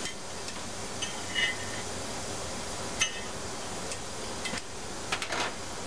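Small metal clinks and clicks as brittle sealing rings are worked off an Evinrude/Johnson 60-degree V6 outboard crankshaft by hand. One clink rings briefly about a second and a half in, a sharp click comes about three seconds in, and a quick run of clicks comes near the end, over a steady shop hum.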